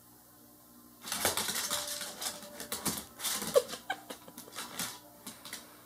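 Dog's and pet rat's claws clicking and scrabbling on a hardwood floor as they scamper about, a rapid, irregular patter that starts about a second in and lasts a few seconds.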